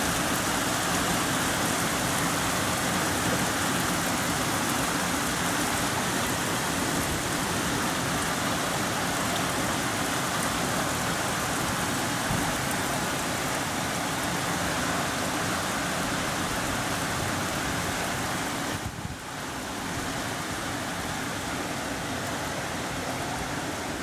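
Heavy rain falling steadily, an even hiss of downpour. Near the end it briefly dips and then carries on slightly softer.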